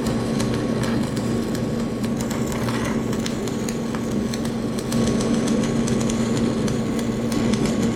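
Stick welding arc crackling and sputtering on cast iron, over a steady hum.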